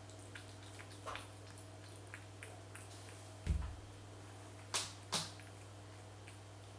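Domestic cat eating wet food from a plastic bowl: soft scattered smacking and licking ticks, a low thump about halfway through, and two sharp clicks close together a little later, over a steady low hum.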